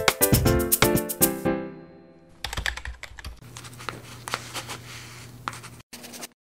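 A few bright plucked music notes that ring and die away. Then a sound effect of quick, irregular typing clicks for about three seconds over a low steady hum, stopping abruptly near the end.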